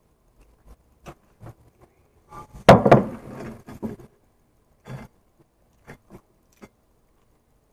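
Close-up eating sounds while chewing pizza: scattered small mouth clicks, with one loud, short noise nearly three seconds in that trails off within about a second.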